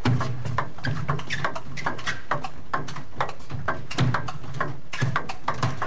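A table tennis ball clicking back and forth off the rubber bats and the table in a fast rally. Dozens of sharp clicks come at an uneven pace, mixed with duller low thumps.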